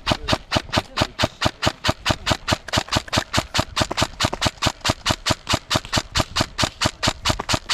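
Airsoft gun firing a steady stream of sharp, evenly spaced shots, about six a second.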